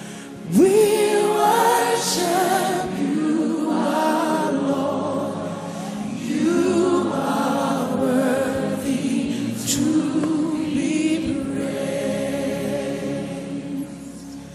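Gospel choir singing a slow worship melody, the held notes wavering with vibrato. The choir comes in strongly about half a second in.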